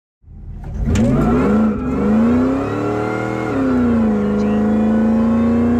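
Supercharged 5.4-litre V8 of a 2001 Ford SVT Lightning pickup at full-throttle acceleration, heard from inside the cab. It cuts in abruptly after a moment of silence, climbs fast in pitch, dips at an upshift under two seconds in, climbs again, drops at a second upshift near four seconds in, then pulls on steadily.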